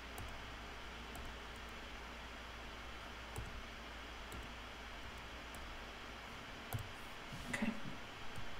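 Faint clicks a second or more apart, from working the colour picker of a drawing program on a computer, over a steady low hum and hiss. A short faint voice sound comes near the end.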